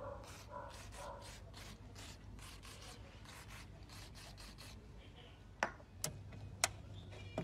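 Aerosol spray can giving a run of short hissing squirts, about two or three a second, onto a car door's window regulator mechanism, then a few sharp clicks near the end.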